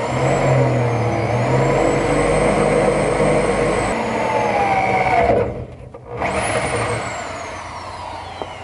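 Cordless drill boring a pilot hole with a small bit into the school bus's steel frame. The motor runs under load for about five seconds, stops briefly, then runs again and winds down with a falling whine.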